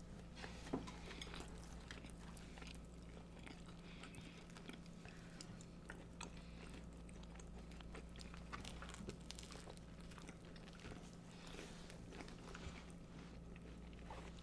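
Quiet close-up eating sounds: soft chewing and biting with small scattered mouth clicks, from people eating sloppy joes and coleslaw, over a steady low hum.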